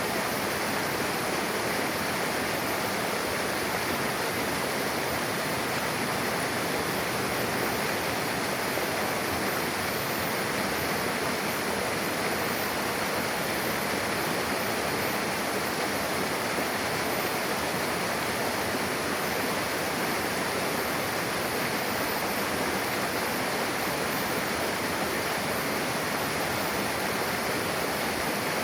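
Mountain river rushing steadily, the water of two merging streams running over rocks.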